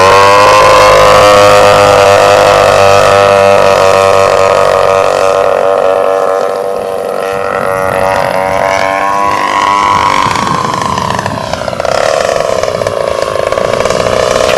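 Engine of a radio-controlled Extra aerobatic model plane running in flight with a buzzing, motorcycle-like tone. Its pitch holds steady for several seconds, sinks about two-thirds of the way through, then rises again as the throttle or the plane's distance changes.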